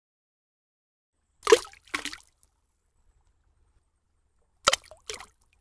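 Cartoon liquid splash sound effects from an egg dropping into a can of paint: two quick splashes about a second and a half in, then two more near the end.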